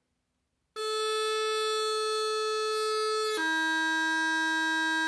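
Highland bagpipe practice chanter sounding a held high G, then stepping down to a held D about three and a half seconds in. It plays the opening of a G–D–B–E crossing exercise, with no drones.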